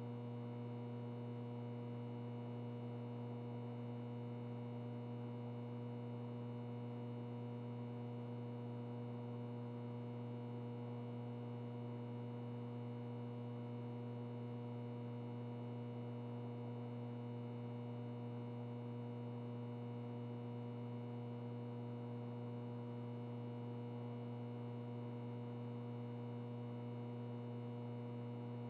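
Ventilation noise with a light electrical buzz: a steady low hum with higher steady tones above it over a faint airy hiss, unchanging.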